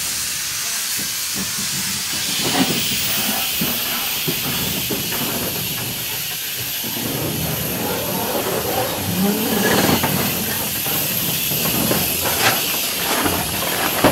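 Small Orenstein & Koppel 0-4-0 steam tank locomotive moving slowly, letting off a steady hiss of steam. Knocks and clanks from its wheels and motion on the rails become more frequent about halfway through.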